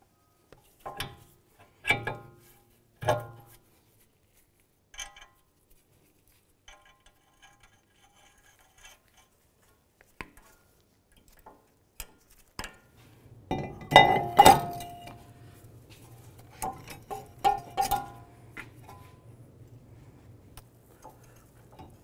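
Metal clinks and knocks of hand tools, nuts and bolts, and front suspension and brake parts being fitted back together on a car. There are three sharp clinks in the first few seconds, a loud cluster a little past the middle, then a few lighter ones, and a low steady hum comes in with the loud cluster.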